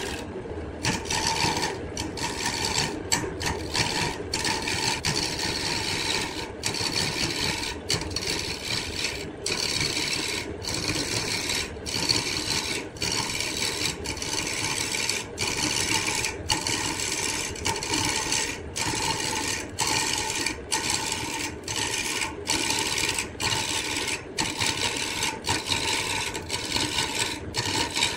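Wood lathe running while a tool works against the spinning wood, giving a continuous rasping scrape. The scrape is broken by brief gaps about once a second.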